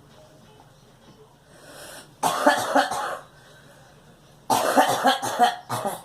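A girl coughing in two fits of several quick, harsh coughs, the first about two seconds in and the second about four and a half seconds in.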